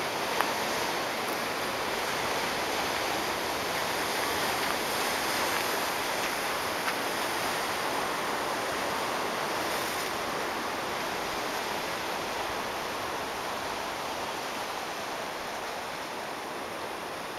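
Steady wash of ocean surf on a rocky shore, an even hiss with no breaks, easing slightly toward the end.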